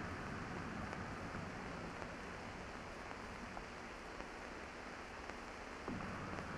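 Faint steady hiss of squad field-radio static between transmissions, growing a little louder about six seconds in.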